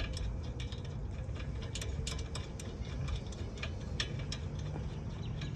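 Scattered light metallic clicks and ticks of hand tools and hardware being worked on the caliper bracket bolts, coming irregularly, over a steady low rumble.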